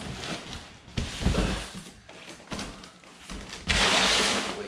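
Cardboard box and packaging being handled as a large RC truck is pulled out: a thump about a second in, then about a second of scraping rustle near the end.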